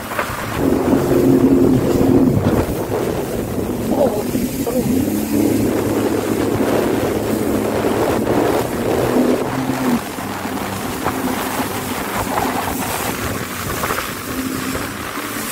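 Jet ski engine running at speed, with water spray hissing and wind buffeting the microphone. The engine note eases off about ten seconds in.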